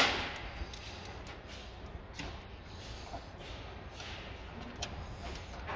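Hand-tool work on an engine: one sharp knock right at the start, then scattered light clicks and taps over a low steady hum.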